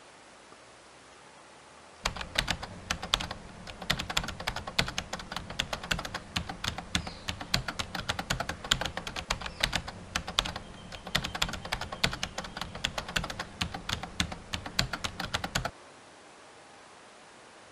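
Rapid computer keyboard typing, a fast unbroken run of key clicks that starts suddenly about two seconds in and stops suddenly near the end. Before it there is only a faint steady hiss.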